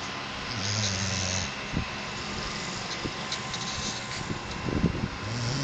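A sleeping pet snoring: one low, breathy snore from about half a second in lasting about a second, and another starting near the end.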